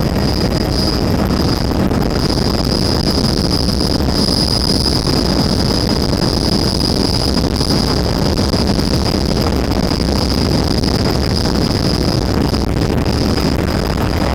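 Helicopter in flight heard from inside the cabin: a loud, steady rotor and engine noise with a constant high whine over it.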